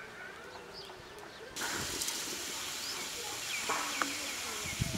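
Small birds chirping over rural background ambience. About one and a half seconds in, a steady hiss starts behind a run of short, repeated chirps, with a couple of light clicks a little later.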